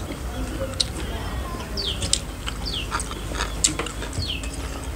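A bird calling in the background with short chirps that slide downward, several times over a few seconds, over scattered sharp clicks of chewing and lip-smacking.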